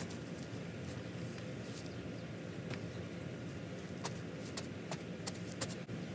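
A spade knocking and patting loose soil down over a filled-in hole: several short, sharp knocks and scrapes, more of them in the second half, over a steady low background hum.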